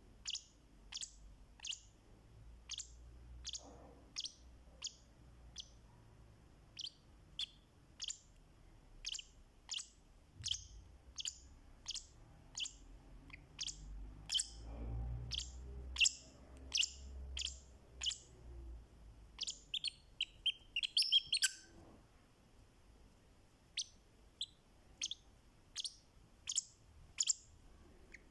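Fischer's lovebird giving short, sharp, high-pitched chirps, a little more than one a second, with a quick flurry of chirps about three-quarters of the way through.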